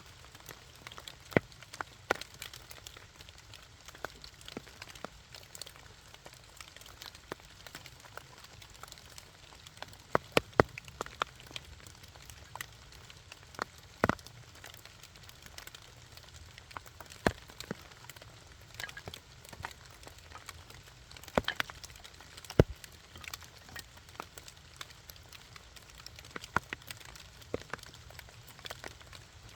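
Wood campfire crackling with irregular sharp pops, a few louder snaps among them, over a steady hiss of rain falling on leaves.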